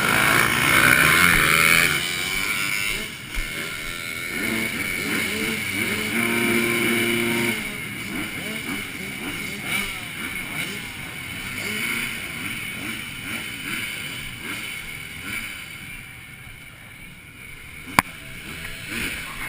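Several dirt-bike engines revving hard as a row of bikes pulls away from a race start. They are loudest in the first two seconds, then keep revving up and down as they fade into the distance. There is one sharp click near the end.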